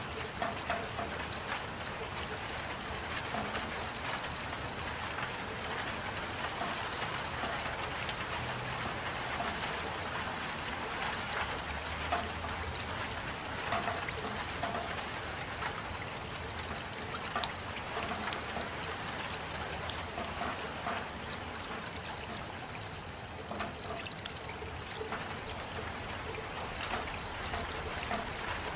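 Steady rainfall with scattered drips and trickling water.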